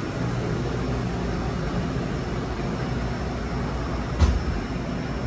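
Taiwan Railways train running with a steady low rumble, and a single sharp knock about four seconds in.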